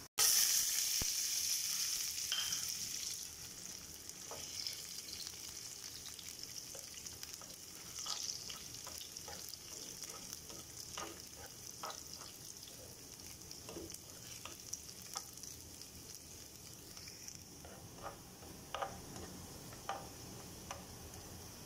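Cashew nuts frying in shallow oil in a pan: a steady sizzle, loudest in the first few seconds, with light clicks and taps of metal tongs turning the nuts throughout.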